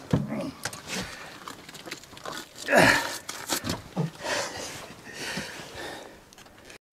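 A man breathing hard and letting out one falling grunt about three seconds in, with scattered knocks and rustling from handling a large flathead catfish on an aluminium boat.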